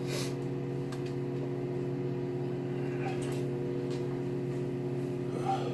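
Microwave oven running with a steady hum while it heats a frozen meal.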